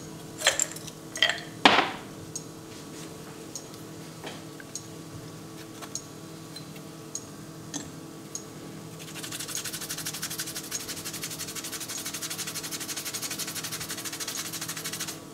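Whole nutmeg being grated on a small rasp grater: rapid, even scraping that starts about nine seconds in and keeps going, after a few light clicks and taps.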